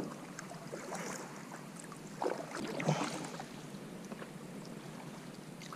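Kayak paddle strokes in the water: quiet dips and drips, with a few louder splashy strokes about two and three seconds in.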